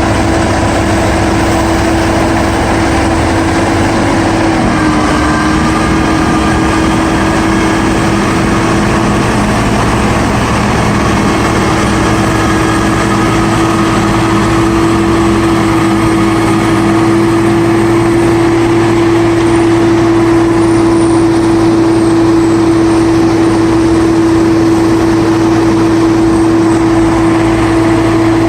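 Diesel engine of heavy snow-removal equipment running steadily under load, with a strong, steady droning tone.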